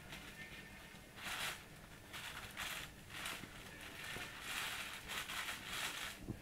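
Thin plastic shopping bag crinkling in several short bursts and one longer stretch as a cat noses and paws at it and the apples in it.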